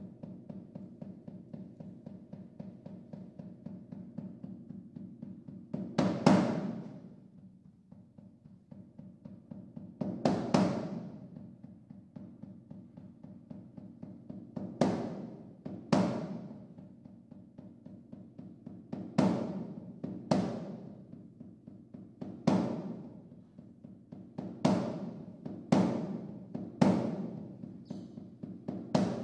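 Timpani played in a soft, rapid roll, with loud struck accents that ring away. The accents come every few seconds at first, then about once a second toward the end.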